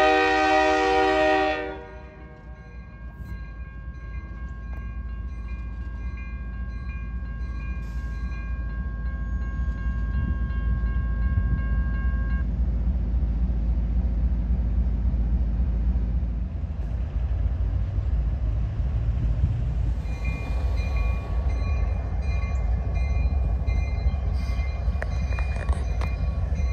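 A CSX diesel locomotive's air horn blast cuts off about two seconds in. The grade-crossing bell keeps ringing, and the low rumble of the locomotive's diesel engine grows louder as it pulls toward the crossing.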